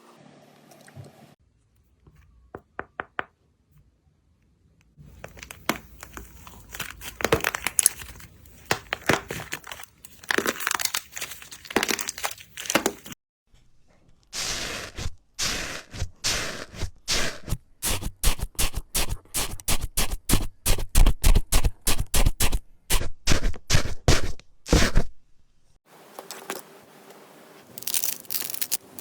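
Slime being pressed and pulled by hand, making fast runs of crackling and popping clicks, in several short segments broken by brief silences.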